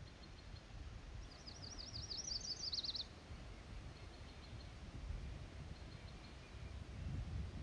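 A small songbird sings once, about a second in: a rapid high trill of quick repeated notes lasting under two seconds and ending a little lower. Under it runs a low, steady outdoor rumble.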